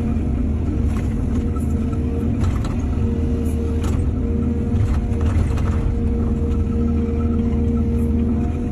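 Excavator's diesel engine running steadily, with scattered knocks and rattles in the middle few seconds.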